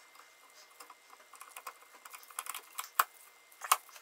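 Small metallic clicks and taps as the jaws of a slide hammer seal puller are worked into the seal bore of a Ford power steering box, with louder clicks about three seconds in and again near the end.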